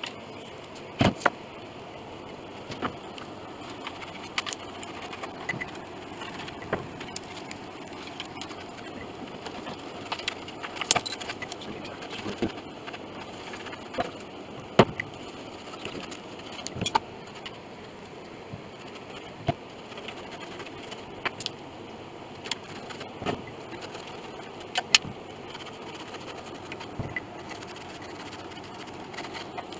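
Irregular sharp clicks and taps, roughly one every second or two, from small pieces and a glue brush being handled against the piano's wooden case, over a steady background hum.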